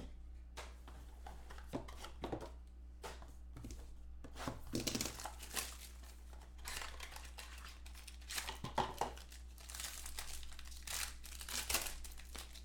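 Clear plastic wrapping crinkling and tearing by hand as a sealed trading-card box and its packs are unwrapped. The crackling comes and goes unevenly, loudest around the middle and again near the end.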